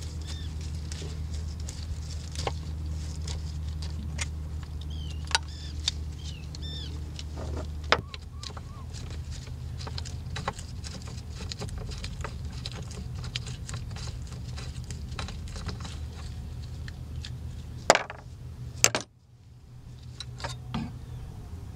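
Scattered metal clicks and clinks of a screwdriver and small screws as the housing of a Mercury 3.3 hp two-stroke outboard is taken apart, with a few sharper knocks, over a steady low hum.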